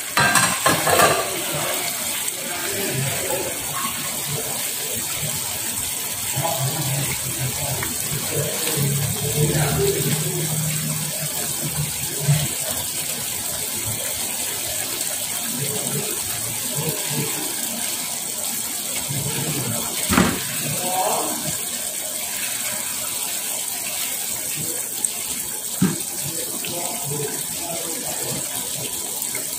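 Watery chilli sauce with tempeh and salted fish simmering in a frying pan over a gas flame, a steady bubbling hiss, while a silicone spatula stirs and scrapes through it. The spatula knocks against the pan a few times.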